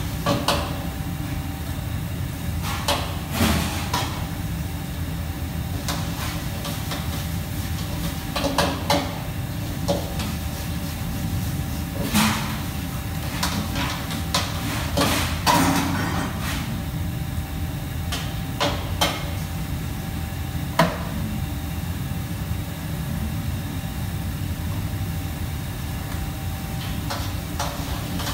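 Steady hum of a commercial kitchen's fans and machinery, with irregular sharp knocks and clanks of utensils and pans every second or few.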